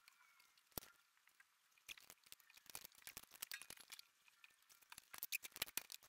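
Faint, irregular metallic clicks and taps of a brake-line flaring tool being handled: the flaring bar with the steel brake tube clamped in it and its yoke being fitted together. One sharp click comes about a second in, then a busy run of small taps from about two seconds until near the end.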